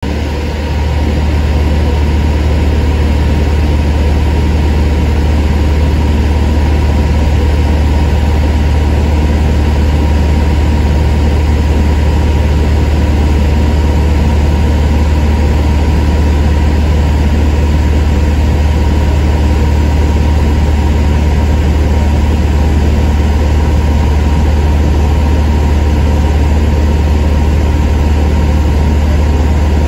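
Cabin noise of a Piper Cherokee Six in cruise flight: its six-cylinder Lycoming engine and propeller make a loud, steady low drone, with a few steady tones riding on it.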